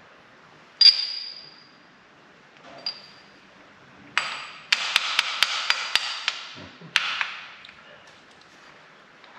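Metal parts being handled and knocked together: a sharp clank that rings on briefly about a second in, a lighter ringing knock near three seconds, then a few seconds of rattling and scraping with quick sharp clicks.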